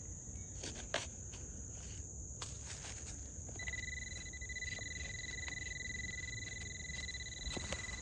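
Insects chirring steadily outdoors, with a few light clicks and knocks. A steady high tone comes in about halfway through and holds to the end.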